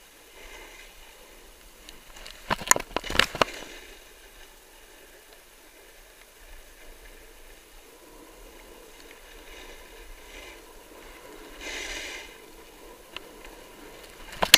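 Snowboard sliding over packed snow with a steady hiss, and a cluster of sharp scrapes about two and a half to three and a half seconds in. A short, louder hiss of the board carving near twelve seconds.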